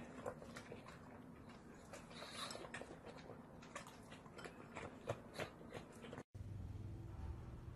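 Pugs being hand-fed small pieces of food: faint, irregular chewing and smacking clicks. About six seconds in, these stop abruptly and give way to a low steady hum.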